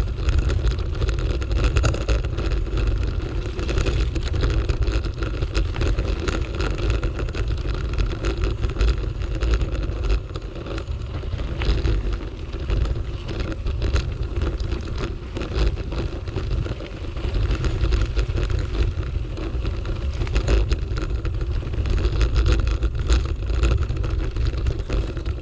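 Bicycle riding over a gravel and dirt track: wind buffeting the microphone and tyres rolling over the loose surface, with many small clicks and rattles from stones and the bike.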